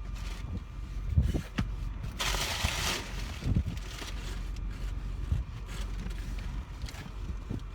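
Low steady rumble of a running car and wind, with a rush of hiss lasting under a second about two seconds in and a few faint knocks.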